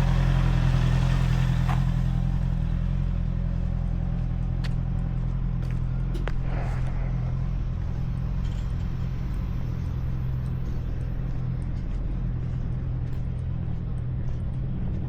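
Honda CBR650R's inline-four engine running on stock exhaust at a steady low note, easing off over the first couple of seconds and then holding even.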